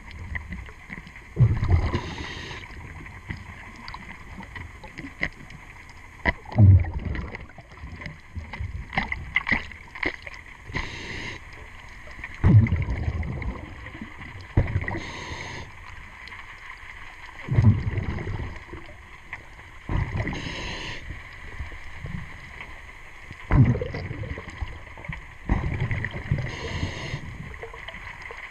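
A scuba diver breathing through a regulator underwater: a hissing breath and a low rumble of exhaled bubbles, repeating about every five seconds, with scattered light clicks and taps between breaths.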